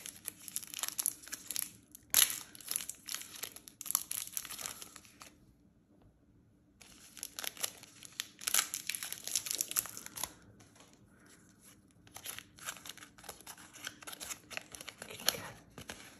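A KitKat bar's plastic wrapper being torn open and crinkled by hand, with one sharp tear about two seconds in. After a short pause the crinkling goes on, and it thins to scattered crackles as the white inner wrapper is unfolded from the chocolate near the end.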